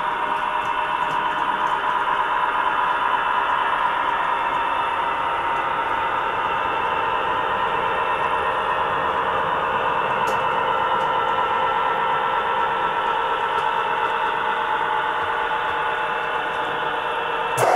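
Steady diesel engine sound from the DCC sound decoder of an HO-scale EMD F3A model locomotive, played through its small onboard speaker, holding an even pitch. A brief click near the end.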